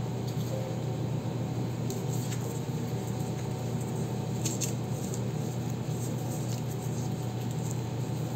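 Crumpled brown paper crinkling in a few faint crackles as it is pressed and shaped by hand, over a steady low hum.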